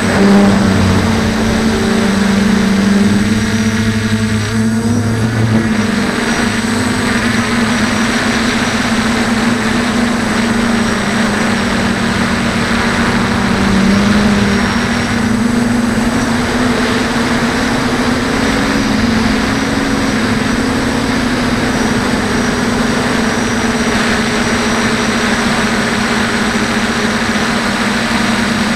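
DJI Flame Wheel 450 quadcopter's brushless motors and propellers, heard close up from the onboard camera, humming steadily with the pitch wandering slightly up and down.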